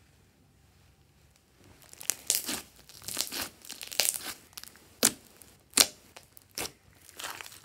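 Glossy slime with foam beads squeezed and pressed by hand. After a quiet first couple of seconds come wet squishes and crackles, broken by sharp pops, two of them loudest about five and six seconds in.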